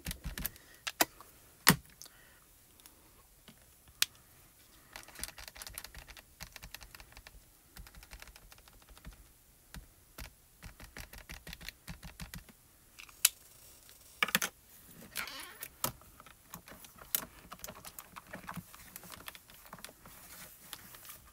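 Ink pads dabbed and pressed onto clear photopolymer stamps and plastic craft supplies handled on a stamping platform: a run of small, irregular taps and clicks, with a few sharper clicks scattered through.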